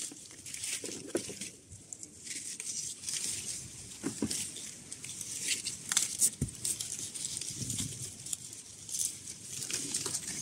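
Apple-tree leaves and twigs rustling, with scattered small clicks and taps, as a hand moves through the foliage handling apples on the branch.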